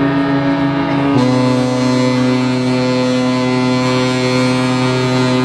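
Ship horns sounding long, steady blasts at several pitches at once. The blend of pitches shifts about a second in and drops away at the very end.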